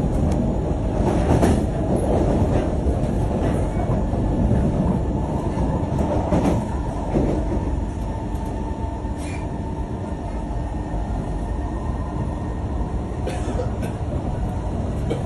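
Singapore MRT train running, its steady rumble of wheels on rail and traction motors heard from inside the carriage, a little quieter from about halfway through.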